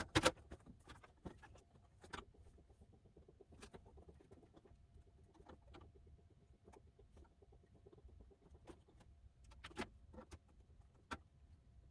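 Faint, irregular light clicks and taps, a few a second at most, with a slightly louder knock near the end: small objects being handled.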